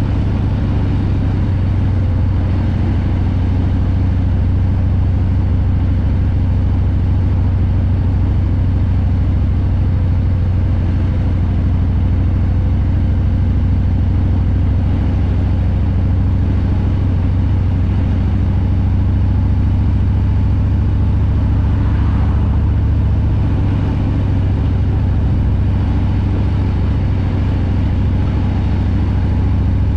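Harley-Davidson Breakout's Milwaukee-Eight 114 V-twin engine running steadily, a deep low exhaust note with no marked revving.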